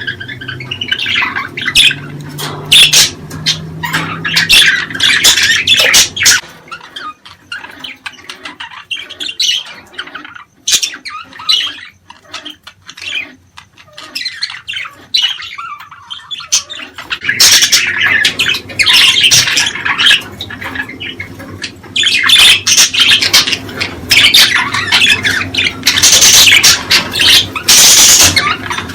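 Budgerigars chattering and squawking in quick, overlapping calls, thinning out to scattered chirps for several seconds in the middle before picking up loudly again.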